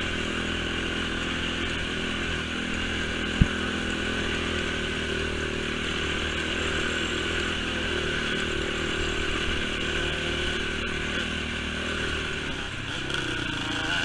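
Honda TRX450 sport quad's engine running steadily on a dirt trail, with one sharp knock about three and a half seconds in. Near the end the engine note drops and then climbs again as the throttle opens.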